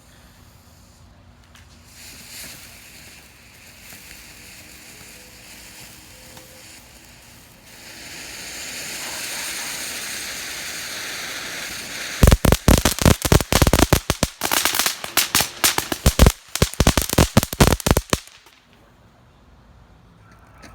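Reloadable firework fountain shell spraying sparks with a hiss that swells about eight seconds in, then a dense run of loud, rapid crackling pops for about six seconds that cuts off suddenly.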